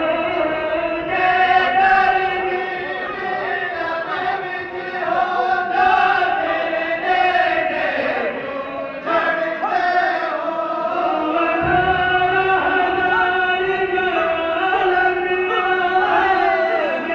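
Men's voices chanting zikr together in long, held, overlapping tones.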